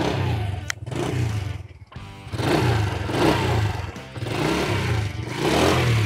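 Honda Astrea Grand's small single-cylinder four-stroke engine running at idle, with the throttle opened a few times so the engine note swells and falls, under background music. The engine runs smoothly on fresh 20W-40 oil.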